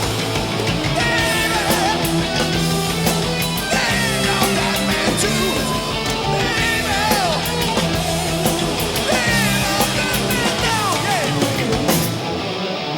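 Rock music with distorted guitar and a singing voice.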